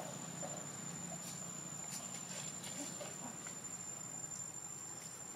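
A steady, high-pitched insect drone, with a few faint ticks over it.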